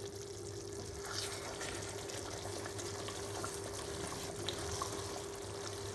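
A wooden spatula stirring thick chicken curry gravy in a non-stick pot: soft wet, sloshing scrapes with small clicks against the pan, starting about a second in, over a steady low hum.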